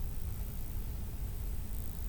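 Steady low rumble with a faint hiss and no distinct events: background room noise.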